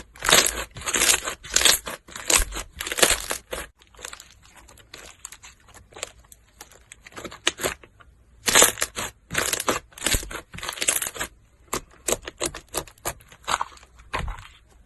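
Slime being squeezed and pressed by hand: a run of short, crackly, popping squishes, about two or three a second, fainter for a few seconds in the middle.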